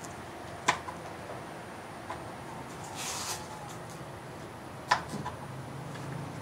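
Sparse kitchen-prep handling sounds on a plastic cutting board: a few sharp knocks, the loudest about five seconds in, and a brief rustle near the middle, over a low steady hum.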